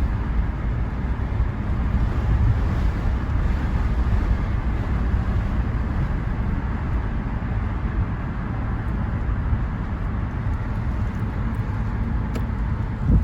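Steady low rumbling of a vehicle on the road, with wind buffeting the microphone.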